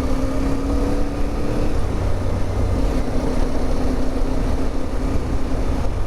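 CFMOTO 450MT's parallel-twin engine running at a steady cruise under way, its note dipping slightly about two seconds in, with wind rushing over the microphone.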